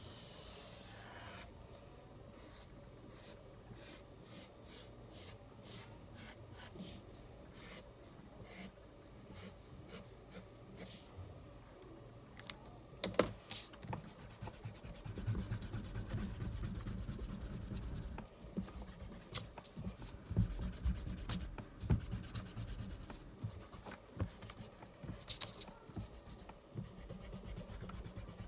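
Black Sharpie felt-tip marker drawing on paper in short scratchy strokes, one after another. From about halfway through, hands rub and brush back and forth across the paper in a steadier rubbing.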